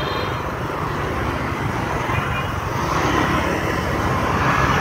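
Steady street traffic noise, engines and tyres running, slowly getting louder.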